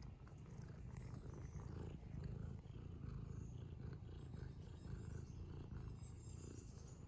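Domestic cat purring steadily, a low continuous rumble picked up close to the cat.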